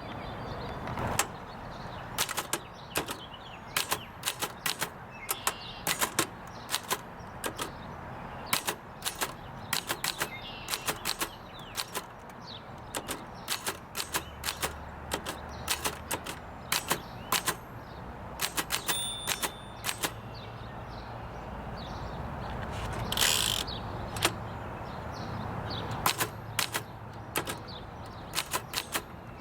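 Remington Portable 5 manual typewriter typing a sample after a repair, working properly: type bars striking in quick, irregular runs of sharp clicks, with a short high ring just before two-thirds through and a longer sliding rasp about three-quarters through.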